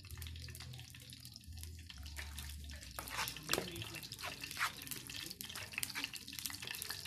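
Hot oil crackling and sizzling in a frying pan on a portable butane gas stove. A low steady hum runs under it for the first few seconds, and from about three seconds in there are many sharp pops and clicks.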